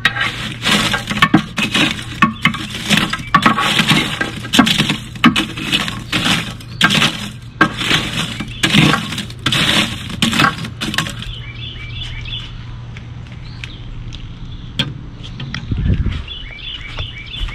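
Lump charcoal in a Big Green Egg's ceramic firebox being stirred and raked with a metal ash tool, the pieces clinking, knocking and scraping together as the ash is worked down through the grate. The clinking stops about two-thirds of the way through, leaving a steady low hum with some faint high chirping and a low thump near the end.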